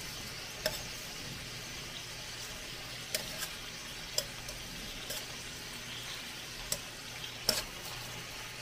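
Chicken pieces frying in oil in a stainless steel pan with a steady sizzle. A metal spoon clinks sharply against the pan several times as the pieces are stirred.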